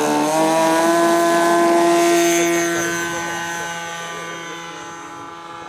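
Radio-controlled aerobatic model airplane's engine and propeller at full throttle on its take-off run and steep climb-out: a loud, steady high-pitched drone that fades over the last few seconds as the plane climbs away.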